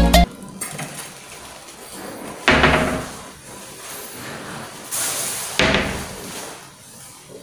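Kitchen cabinet doors under the sink being swung shut: one knock about two and a half seconds in that dies away over about a second, and a second, sharper knock about three seconds later.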